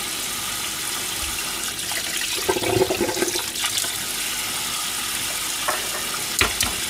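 Kitchen tap running in a steady stream into a stainless steel sink, splashing over hands as boiled eggs are peeled under it, with a few light knocks about three seconds in and again near the end.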